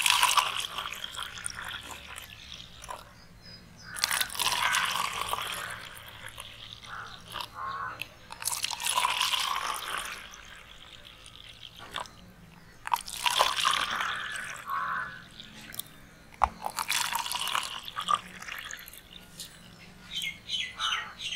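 Rasna drink poured in a thin stream from a steel pot into plastic cups, splashing in repeated bursts about every four seconds.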